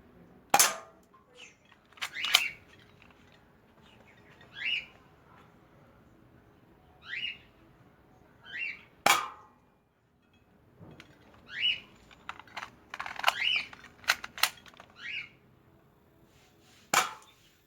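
Spring-powered airsoft Colt 1911 pistol firing single sharp shots, seconds apart, with a quicker run of shots about two-thirds of the way through. A bird gives a short rising chirp every couple of seconds.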